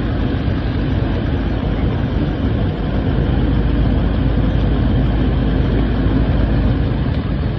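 Large Toyota SUV engine idling steadily, a low even rumble.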